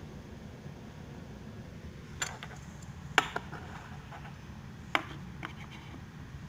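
Small black metal corner brackets clicking against an oak board as they are set in place by hand: four or five sharp clicks, the loudest about three seconds in, over a steady low hum.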